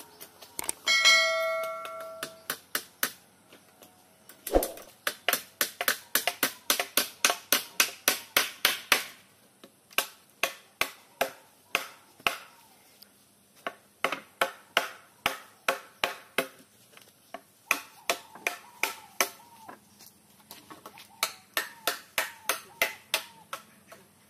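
Hammer driving nails into the wooden frame of a quail cage: runs of quick strikes, about four a second, broken by short pauses. Near the start there is a brief metallic ring.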